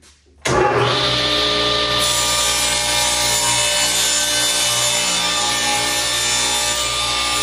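A table saw switches on about half a second in and runs steadily at full speed while a thin wood panel is pushed through the blade, cutting it lengthwise.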